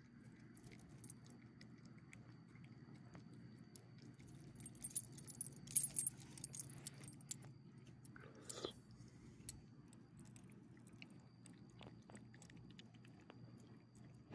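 A small dog's harness tags jingle in a brief flurry about five to seven seconds in as it moves about, amid faint small clicks of it chewing and licking chicken from a hand. A faint steady hum runs underneath.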